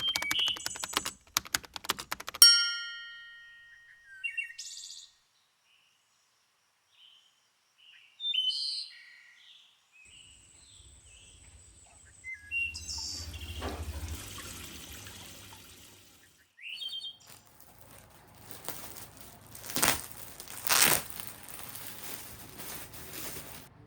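Birds chirping in short high calls between household noises: a quick run of clicks at the start, then a loud ringing ding that fades away over a couple of seconds. Later comes a hissing stretch with a low hum, and two sharp knocks near the end.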